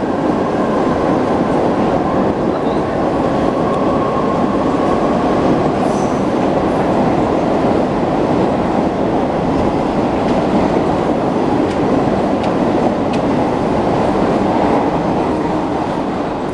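Several trains running together on parallel tracks, Mumbai suburban EMU locals and a long-distance passenger train: a loud, steady rumble of wheels on rails. A faint high wheel squeal shows a few seconds in.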